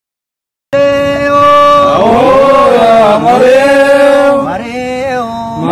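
Silence, then under a second in a chanted Oromo song starts abruptly: a long held sung note, then sliding, wavering sung phrases.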